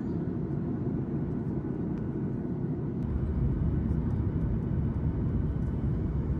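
Steady low rumble of a passenger jet heard from inside the cabin, with no tones standing out; the low end grows louder about three seconds in.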